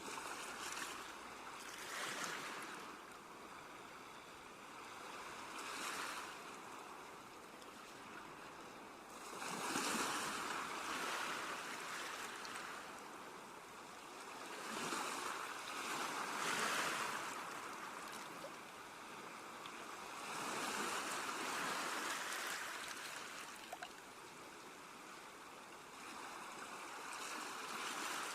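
Sea waves breaking and washing up the shore, the surf swelling and ebbing every few seconds.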